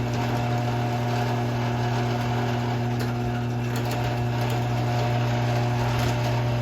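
Garage door opener motor running steadily as it drives the door down, a constant low hum with no change in pitch.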